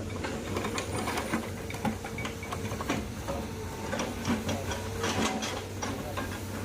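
Excavator running with a steady engine hum, overlaid by many irregular metallic clicks and knocks.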